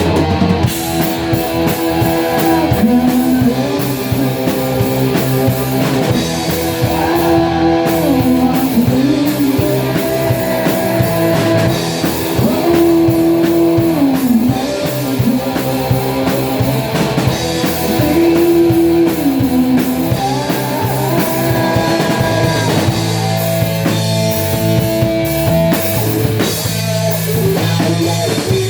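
Rock band playing a song: guitar with long, bending melody notes over a drum kit.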